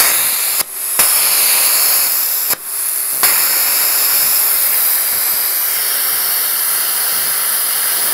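Cut 50 ST plasma cutter's arc cutting thick steel: a loud, steady hiss of the plasma arc and air jet, which drops out briefly twice in the first three seconds and then runs unbroken. The cutter is set to about 51 amps on a stack of roughly 28 mm, well beyond its rated 14 mm.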